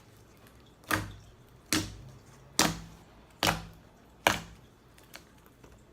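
Mixed slime being kneaded and pressed, giving five sharp air-pocket clicks, about one a second.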